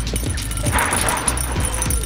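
Wind rumbling on the microphone and knobby tyres crunching over a dirt fire road as a bicycle runs fast downhill, with scattered knocks from bumps and a brief rough noise about a second in.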